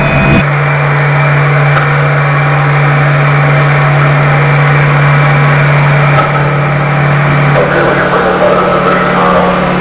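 Loud steady low electrical hum over a hiss of static, the sound of a television out of order. The hum shifts slightly a couple of times in the second half.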